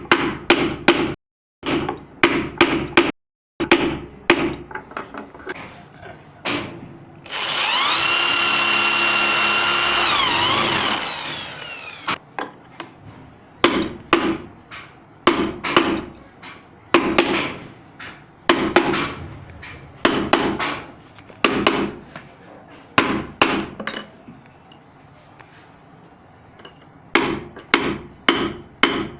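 Carving work on wood: clusters of sharp mallet knocks, several a second, with a pause in the strikes near the end. About seven seconds in, a power router runs for roughly four seconds with a steady whine, then spins down.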